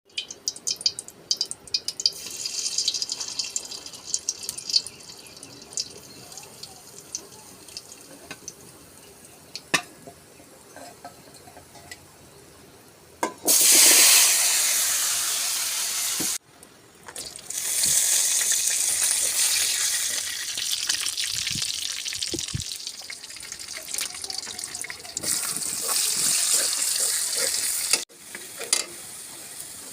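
Kitchen sounds while cooking: a few light clinks and knocks, then a loud, even rushing hiss in two long stretches, the second lasting about ten seconds and swelling and easing.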